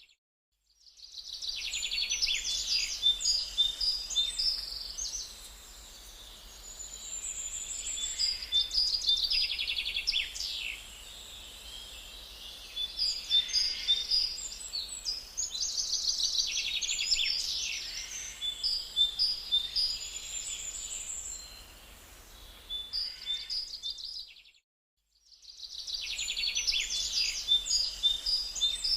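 Songbirds singing: bursts of high, bright chirps and trills come again and again, with short pauses between phrases. The sound cuts out completely for about a second at the start and again near the end.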